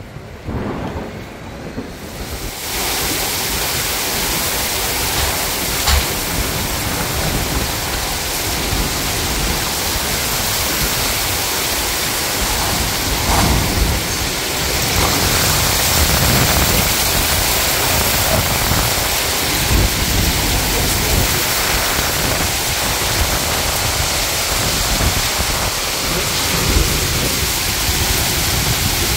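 Heavy rain falling steadily, with rumbles of thunder. The rain comes up loud about two seconds in.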